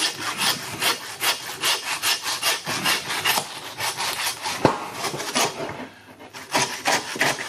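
Butcher's hand bow saw cutting through a pig's head, the skull bone, in quick back-and-forth strokes. There is a brief pause about six seconds in.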